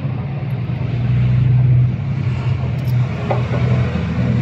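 Steady low hum of an engine running at an even speed, swelling a little between about one and two seconds in.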